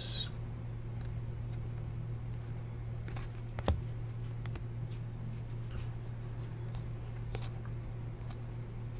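Topps Chrome baseball cards being flipped through and set down by hand: a few faint clicks of card against card, the sharpest about three and a half seconds in, over a steady low hum.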